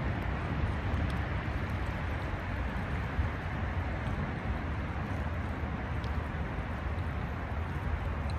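Steady rush of fast-flowing river current close by, over a constant low rumble.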